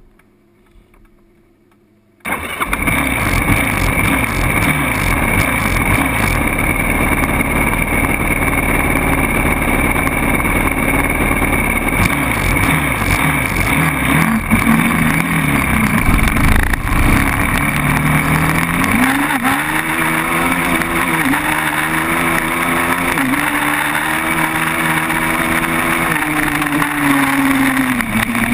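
A sport quad bike's engine starts suddenly about two seconds in and runs roughly while the bike stands still. From about eighteen seconds its pitch rises and falls again and again as the quad accelerates away through the gears.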